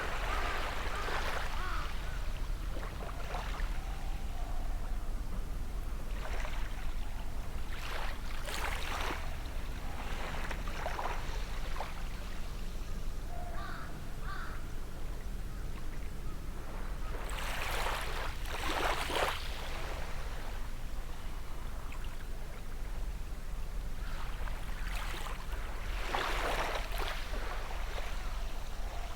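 Gentle sea waves washing onto the shore, each wash swelling and fading about every eight to nine seconds, over a steady low rumble. A few short, faint bird calls sound between the washes.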